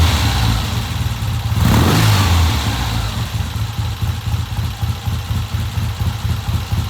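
1970 Triumph motorcycle engine running on a freshly fitted Amal Premier carburettor, blipped up twice (near the start and about two seconds in), then settling to a steady idle. It runs cleanly and sounds pretty good.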